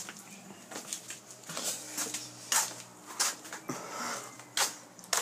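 Irregular knocks and rustles from a phone being carried and handled, about one a second, over a faint steady low hum.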